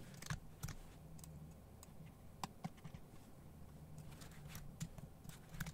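Faint, scattered clicks of a computer keyboard and mouse as values are typed into a field, irregular single keystrokes and clicks over a low hum.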